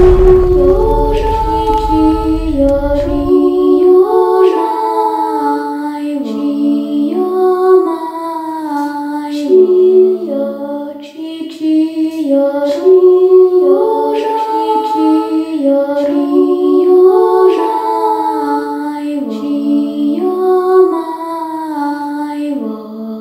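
Wordless a cappella singing, a slow melody of held notes moving in steps. Under its opening, the low rumble of an explosion sound effect dies away about three seconds in.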